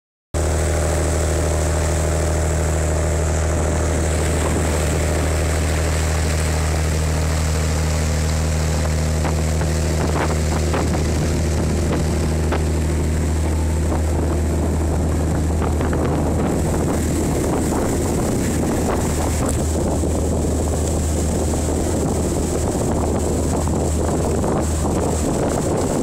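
Small ferry's diesel engine running at a steady drone under way, over the rush of the wake; the rush of water and wind on the microphone grows in the second half.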